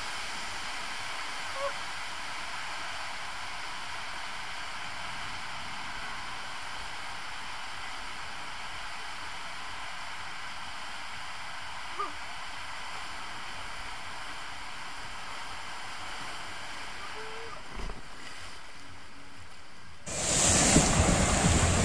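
Steady rushing hiss of water flowing down an enclosed tube water slide with a rider sliding through it, with a few brief faint squeaks. Near the end the water noise suddenly becomes much louder.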